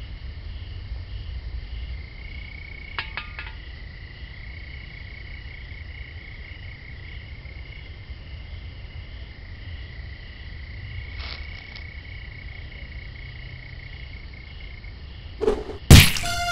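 Steady night chorus of frogs and chirping insects over a low rumble, with a couple of faint clicks. Near the end a short thud, then a loud sharp chopping hit of a blade striking into a head.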